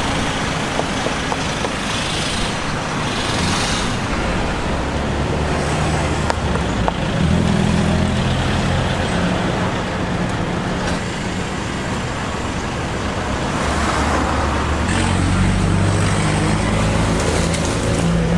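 Road traffic noise: motor vehicle engines running with a steady low hum that shifts a few times.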